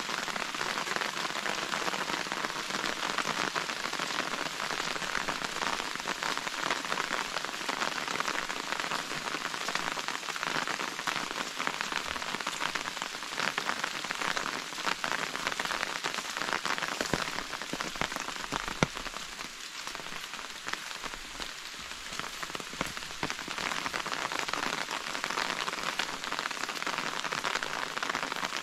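Steady rain falling, a dense patter of many small drops, with one sharper, louder tap about two-thirds of the way through.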